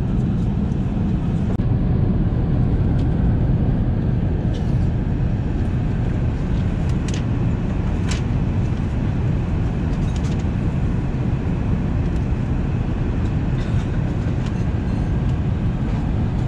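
Steady low rumble of cabin noise inside an Airbus A380 economy cabin in flight: engine and airflow noise. A few faint clicks sound over it.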